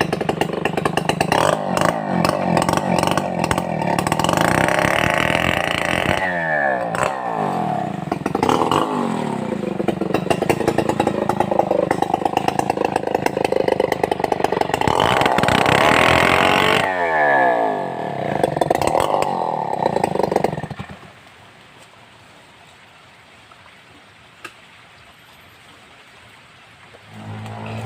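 Stihl 070 two-stroke chainsaw at high revs sawing timber, its pitch dropping sharply and climbing back twice. The saw sound cuts off about three-quarters of the way through, leaving quieter background.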